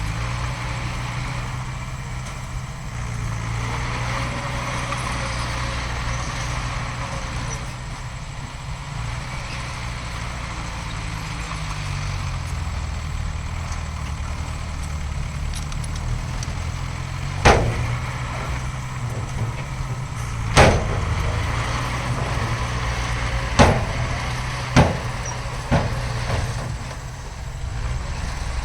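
Heavy diesel earthmoving machinery running steadily with a low drone. In the second half come five sharp bangs a second or so apart, the loudest sounds here.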